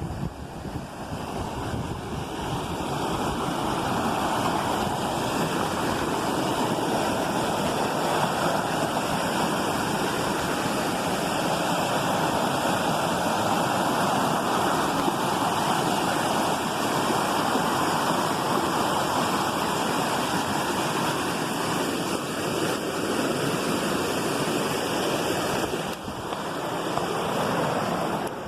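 Waterfall water rushing steadily, an even, unbroken noise with a brief dip near the end.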